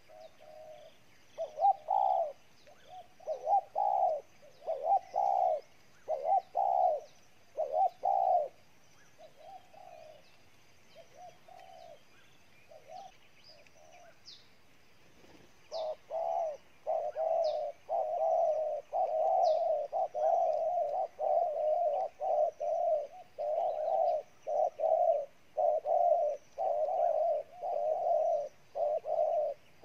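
Spotted dove cooing in the soft, repeated "gù" call. Spaced coos come first; after a short pause, about halfway through, a long fast run of coos follows at about one and a half a second. Faint high chirps sound above it.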